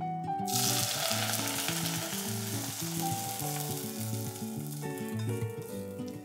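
Hot sesame oil with dried shrimp sizzling as it is poured from a small frying pan onto raw garlic chives; the sizzle starts sharply about half a second in and dies away over the next few seconds.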